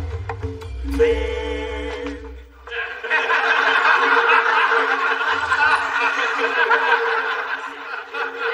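A short burst of sitcom transition music fades out about three seconds in. Then a studio audience laughs and chuckles steadily for the rest, as a character walks in.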